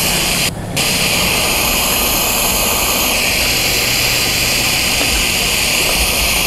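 Water from a dock hose rushing into a catamaran's deck fill as the water tank is filled: a loud, steady hiss with a brief dip about half a second in.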